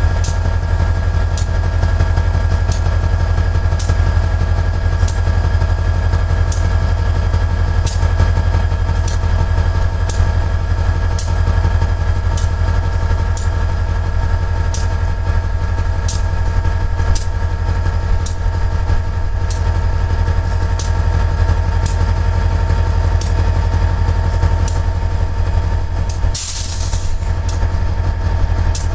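Diesel-electric freight locomotive idling while standing, a steady low rumble with a light clicking about once a second. A brief hiss cuts in near the end.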